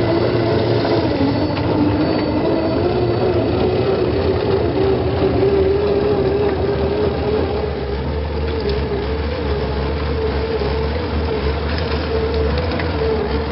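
Xtra Speed D110 1/10-scale RC crawler's electric motor and gearbox running under load as it climbs, a steady whine that wavers slightly in pitch.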